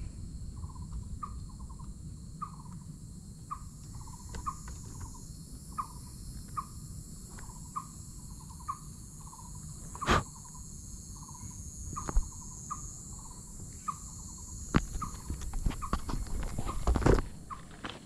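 Forest ambience: a steady high insect drone with a short animal call repeating roughly once a second, over a low wind rumble. A few sharp knocks come through, one about ten seconds in and a cluster in the last few seconds.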